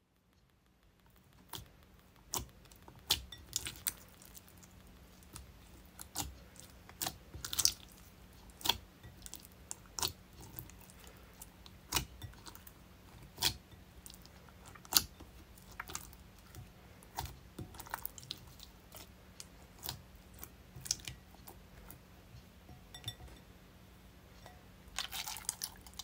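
Clear, watery jiggly slime with small beads mixed in, squished and poked by hand in a glass bowl: sharp clicks and crunchy pops, about one every half second to second, with a denser crackling run near the end. A faint steady hum runs underneath.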